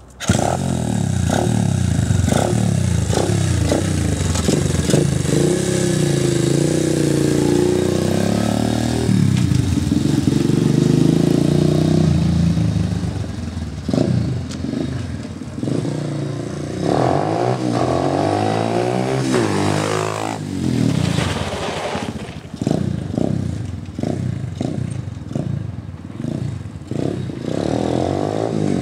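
Irbis TTR 125 pit bike's small single-cylinder four-stroke engine running and revving. Its pitch climbs and falls through a long pull in the first half, then goes into a string of short throttle blips in the second half.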